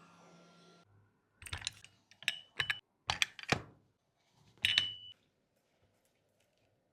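A run of sharp clicks and taps, in small clusters over about four seconds, two of them trailing off in a brief high ring.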